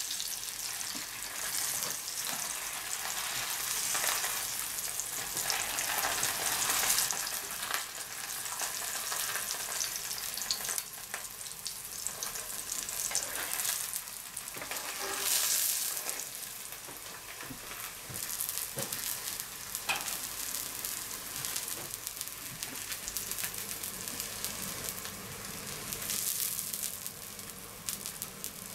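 Oil sizzling steadily around a flatbread frying in a black iron pan, swelling louder a few times.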